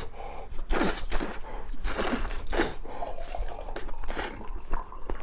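Close-miked chewing and biting: irregular wet crunches and smacks of someone eating.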